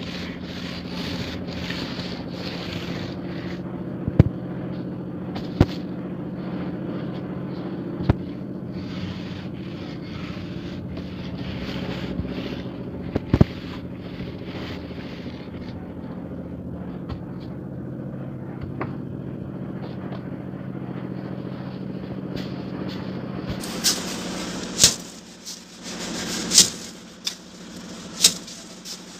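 Wooden straightedge scraping over wet cement plaster on an aerated-concrete block wall, with a steady machine hum underneath and a few sharp knocks. Near the end the hum fades and several loud, sharp slaps come.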